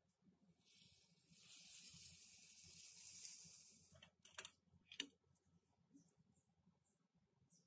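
A steady high hiss for about three seconds as sugar syrup is poured over freshly baked kunafa in its tart pan. Then a few clicks and a sharp clack of the metal tart pan against the serving plate as the tart is turned out, the clack about five seconds in.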